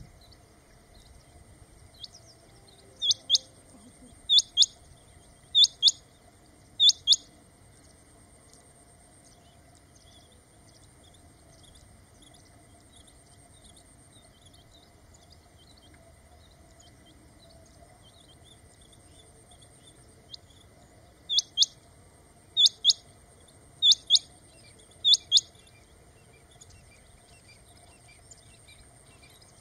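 Male rain quail calling: two bouts, each of four loud, high, paired squeaks about a second and a quarter apart, the first bout a few seconds in and the second about two-thirds of the way through.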